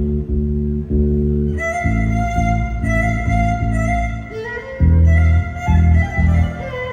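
Trío huasteco playing a huapango: a violin melody comes in about a second and a half in over the steady strummed rhythm of the jarana and huapanguera.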